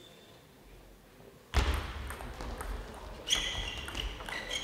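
Table tennis rally: the ball clicking off the bats and table, ringing in a large hall, after about a second and a half of near silence. Short high squeaks join in from about halfway.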